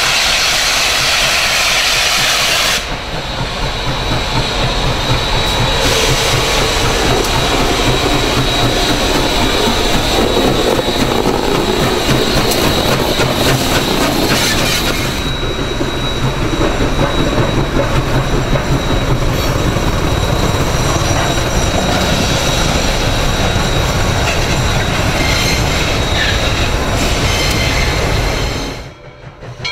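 Southern Railway 630, a 2-8-0 steam locomotive, passing with its train: dense exhaust and running-gear noise and steel wheels clattering on the rails. A thin, high steady squeal runs through the middle stretch. The sound changes abruptly about three seconds in and again about halfway.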